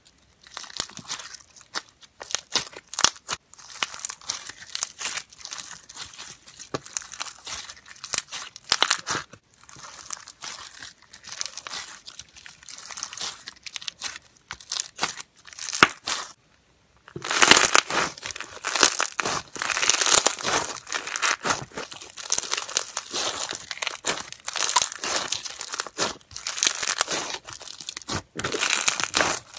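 Dense crackling and crunching of foam-bead slime (floam) being squeezed and kneaded by hand, the beads clicking and popping against each other under the fingers. It stops briefly about two thirds in, then resumes louder.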